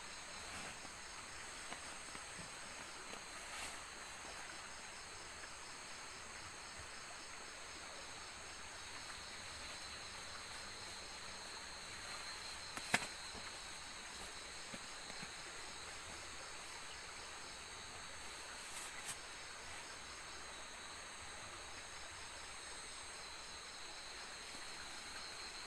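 Night forest insects, crickets and similar, in a steady high-pitched chorus with a fast, even pulsing, broken by a few sharp clicks, the loudest about halfway through.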